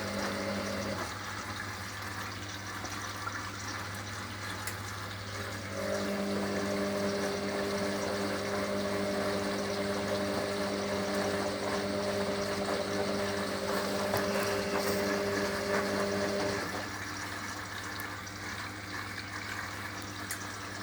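Hoover washer dryer filling with water for its rinse: a steady rush of water over a low hum. A higher motor hum cuts out about a second in, comes back about six seconds in, and stops again around sixteen seconds.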